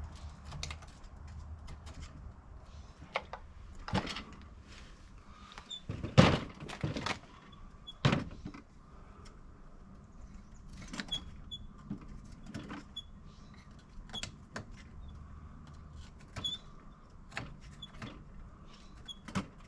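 Bench work with hand tools on a petrol string trimmer: scattered clicks, taps and knocks of metal and plastic being handled, with two louder knocks about six and eight seconds in.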